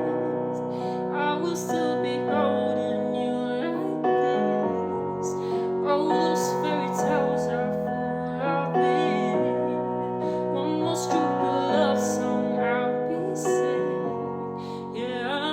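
A woman singing over piano chords, the chords changing about every two seconds in a slow ballad arrangement.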